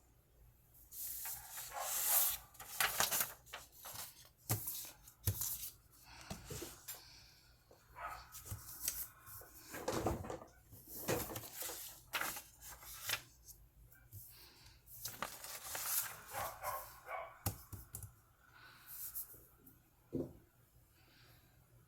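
A sheet of paper being handled and folded, rustling and crinkling in irregular bursts.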